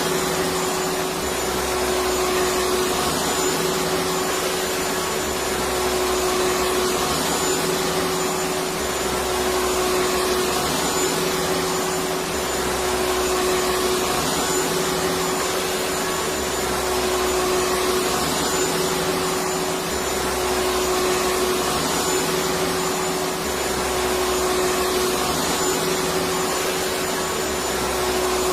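Electric vacuum cleaner running steadily: a continuous rushing of air with a steady motor hum underneath.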